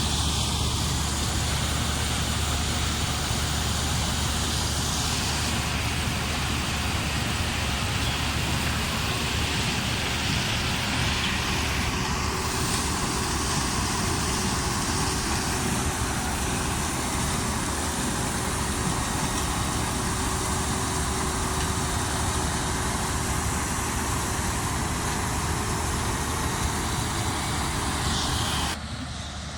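Combine harvester running steadily under harvest load: a dense, even machine noise over a constant low engine hum. It drops away suddenly near the end.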